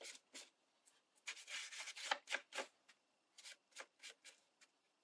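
Paintbrush stroking paint onto book-page paper petals: faint, scratchy short strokes, a few a second, in small groups with brief pauses.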